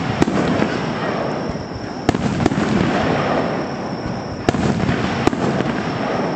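Aerial firework shells bursting in the sky: about five sharp bangs, two of them close together about two seconds in, over a continuous rumble of echoing reports.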